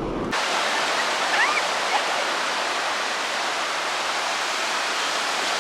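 Steady, even hiss of rushing water, starting abruptly a moment in, with a faint short whistle-like sound about a second and a half in.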